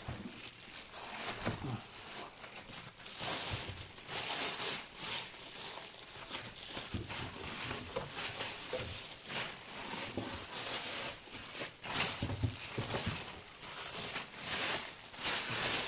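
Thin plastic bag crinkling and rustling in irregular bursts as hands handle it and pull it back.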